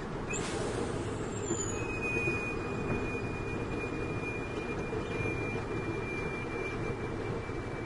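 Steady engine and cab rumble of a slowly moving heavy truck, heard from inside the cab. From about two seconds in, a thin high whine joins it and slowly falls in pitch.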